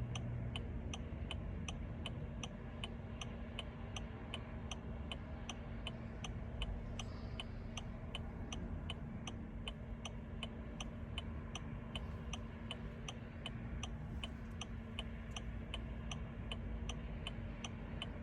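Steady, even ticking from the 2007 Range Rover Sport's electrics, about three clicks a second, over a steady low hum, with the key on and the engine not cranking.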